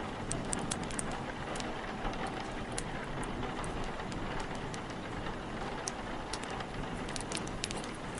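Steady rain with wind, and a wood fire crackling over it in sharp, irregular pops that come thickest near the end.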